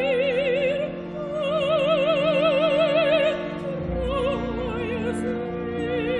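Operatic soprano singing long, slow held notes with a wide vibrato over a soft orchestra, with a short breath between phrases about three and a half seconds in.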